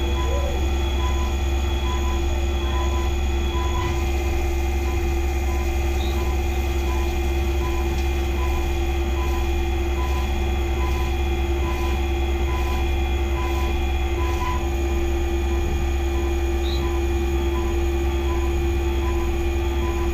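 Skyfire SVM-2 CNC vertical mill cutting an aluminium block under flood coolant: a steady spindle whine with a constant pitched tone over a low machine hum, and a faint regular pulsing throughout.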